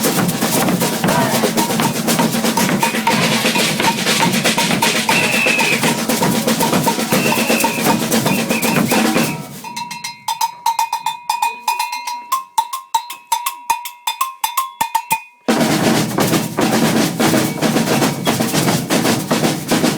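Maracatu percussion ensemble playing a dense rhythm on alfaia drums, snare drums, shakers and bells. About halfway through, the drums drop out for about six seconds, leaving a bell struck repeatedly and light clicks, and then the full ensemble comes back in at once.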